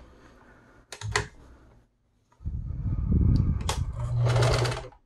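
Fabric being handled and pulled out from under the presser foot of a Meister Class 76 sewing machine: a single click about a second in, then a couple of seconds of cloth rustling and dragging with a few sharp clicks and a short low hum near the end.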